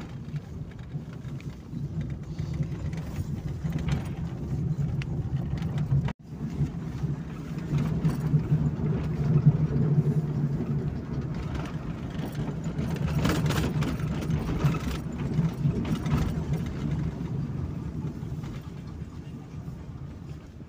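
Car engine and road noise heard from inside the cabin while driving, a steady low drone. The sound drops out for a moment about six seconds in, then carries on.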